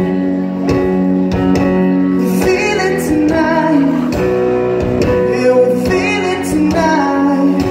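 Live band music: held chords over a steady drum beat, with singing in places.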